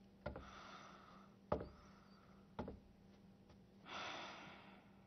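A few faint sharp taps, then a heavy breath out about four seconds in, over a low steady hum.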